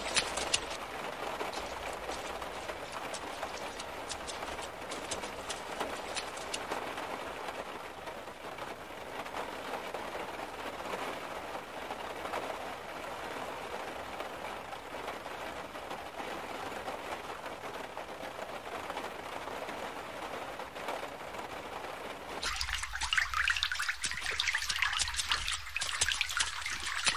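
Rain and running floodwater: a steady hiss of water that changes abruptly near the end to a brighter, harsher hiss.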